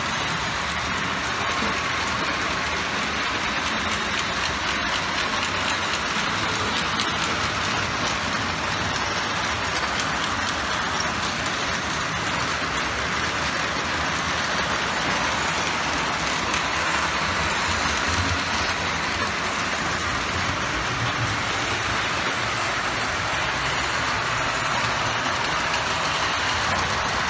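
O gauge model trains running on the layout: wheels and rolling stock rattling on metal track, making a steady noise.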